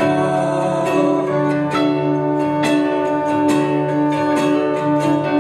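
Acoustic guitar strumming sustained chords in an instrumental passage of a live song performance, with no singing.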